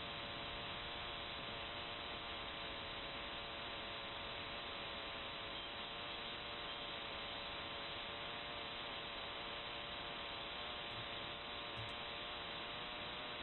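Ham radio receiver hiss: steady band noise with several faint steady tones in it, cut off sharply at the top like audio through a narrow receive filter.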